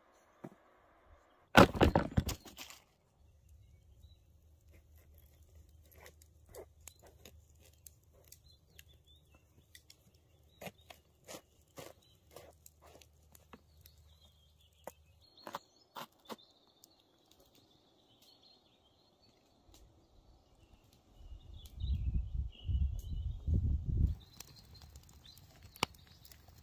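A knife slashing red peppers off a branch, a sharp swish and snap about two seconds in; then a string of light clicks and knocks as peppers and aubergines are set down on a wooden board. Near the end there are a few seconds of low rumbling thuds, then a faint campfire crackle.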